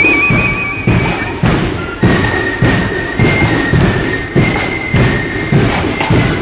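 Marching parade band playing. A bass drum beats steadily, about one and a half strokes a second, under a high, piping melody line that opens with a trill.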